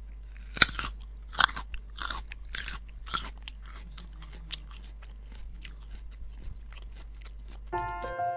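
A rabbit chewing raw carrot sticks: several loud crunching bites in the first three seconds, then a long run of rapid, smaller chewing crunches. Piano music comes in near the end.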